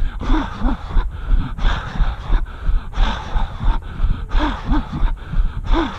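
A runner's heavy breathing during a long road run: short voiced puffs of breath, often two at a time, over a jolting running rhythm of about two beats a second and a steady low rumble.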